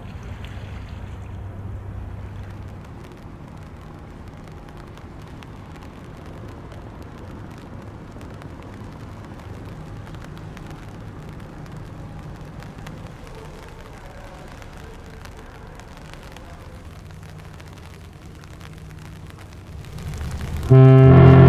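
A low, steady rumble across the water. Near the end, the Explorer of the Seas cruise ship's deep horn starts suddenly and sounds loudly as a held, multi-toned blast.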